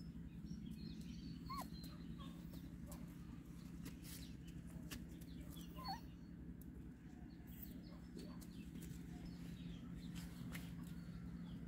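A few faint, short animal squeaks or calls, about two of them clearer than the rest, over a steady low hum and scattered light ticks.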